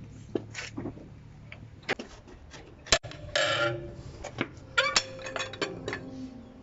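Metal clicks and clinks of a wrench working on a truck wheel's lug nuts, with a short scraping rush about three and a half seconds in.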